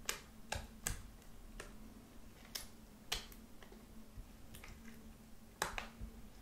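Sticky pink body-lotion slime being folded and stirred with a silicone spatula in a glass dish, giving irregular sharp wet pops and clicks, roughly two a second.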